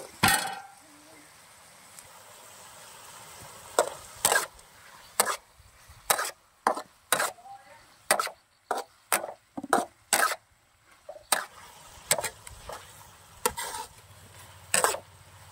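Metal spatula scraping and knocking against a metal wok while stir-frying. Sharp, irregular strokes come about two a second at their busiest, starting about four seconds in, after one loud knock right at the start.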